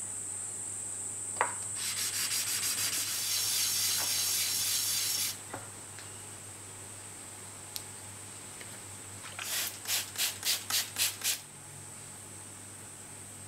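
A powder-coated brass nameplate on a wooden handle being rubbed back and forth on wet-and-dry abrasive paper over a glass plate, cutting the coating off the raised etched lettering so the brass shows through. A light tap comes first, then a few seconds of gritty scrubbing. Near the end there are about seven short, quick strokes.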